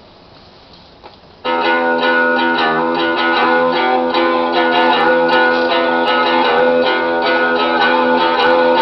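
A Wollensak T-1980 reel-to-reel deck plays a pre-recorded tape through its built-in amplifiers and speakers. There is a faint hiss for about a second and a half. Then a guitar song starts suddenly and plays on steadily.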